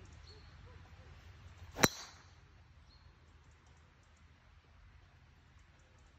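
Driver striking a golf ball off the tee: one sharp crack about two seconds in, ringing briefly after.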